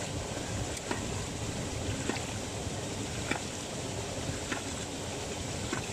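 Hydraulic ram pump cycling: its waste valve clacks shut about every 1.2 seconds, five times, over a steady rush of water.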